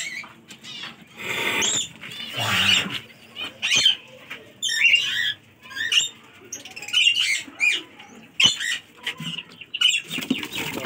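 Small parrots, mostly peach-faced lovebirds, chirping and squawking in many short, sharp calls. About a second in there is a two-second rush of fluttering wings.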